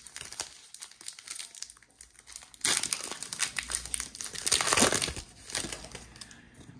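Crinkling of a trading-card pack's foil wrapper as it is handled and torn open, with two louder stretches of crinkling in the middle, among small clicks and rustles.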